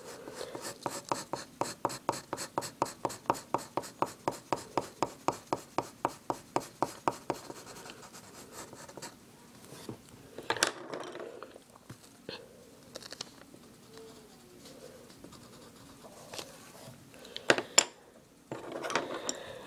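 Pencil shading rapidly back and forth on lined paper, about five strokes a second, for roughly seven seconds, then it stops. Later there are a couple of sharp knocks and a brief rustle.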